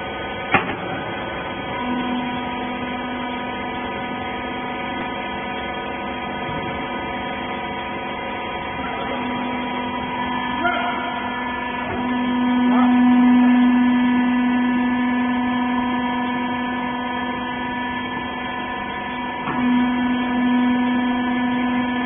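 Hydraulic rag baler's electric motor and pump running with a steady hum, after a single click just after the start; the hum grows louder for a few seconds around the middle.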